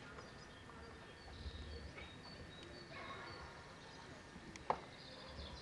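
Faint outdoor background of distant voices and high bird chirps, with one sharp click near the end.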